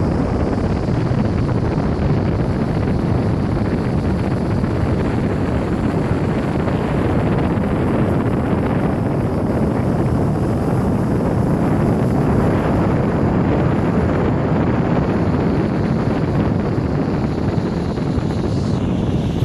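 Steady, loud rushing roar of Niagara Falls, with wind buffeting the microphone.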